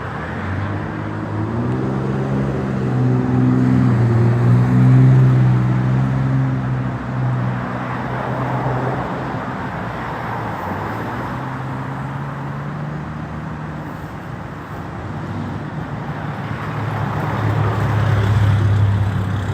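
Road traffic passing close by over steady tyre noise. One vehicle's engine hum builds, peaks and fades over several seconds early on. A second vehicle swells in near the end.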